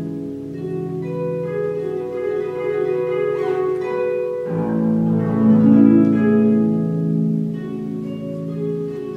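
Solo concert harp playing: plucked notes and chords ringing over sustained low bass notes, with a new low chord struck about four and a half seconds in.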